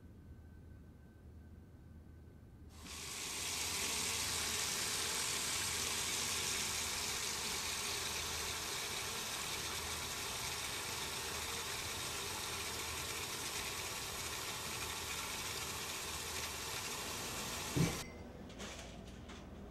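Kitchen tap running in a steady stream for about fifteen seconds, then shut off with a knock near the end.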